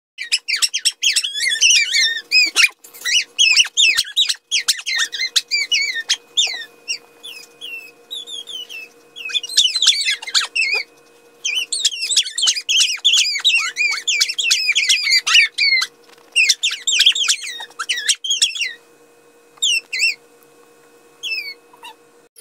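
Siberian husky making rapid, high-pitched squeaks and chirps in bursts, with short pauses between runs.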